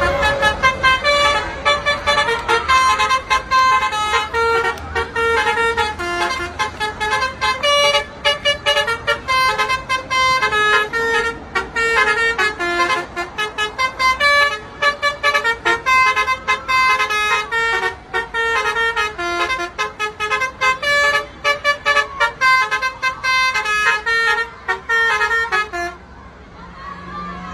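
Bus 'telolet' horn, a multi-note musical air horn, playing a fast melody of short toots that changes pitch every fraction of a second. It stops near the end.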